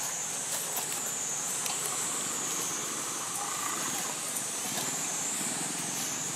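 Steady high-pitched insect chorus, cicadas in full song, a shrill buzz that swells and eases every second or so over a faint low background hum.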